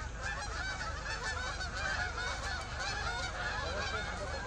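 A flock of geese honking, many birds calling over one another in a steady, continuous chorus.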